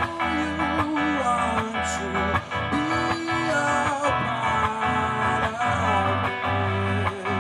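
A man singing a slow song live, accompanying himself by strumming an archtop electric guitar.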